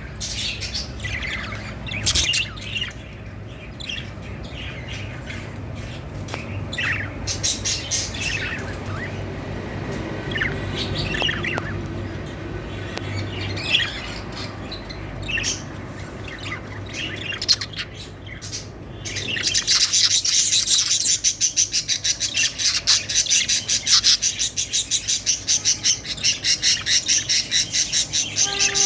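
A flock of budgerigars calling in breeding condition: scattered chirps and squawks at first, then from about two-thirds of the way in a louder, continuous fast chatter of rapid repeated high chirps.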